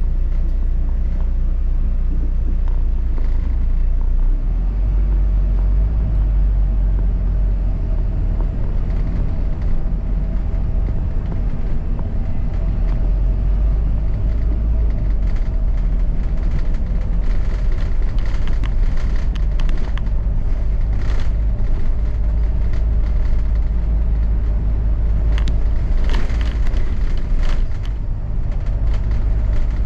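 Double-decker bus running, heard from inside the cabin: a steady low engine and road rumble, with a few short rattles from about halfway on.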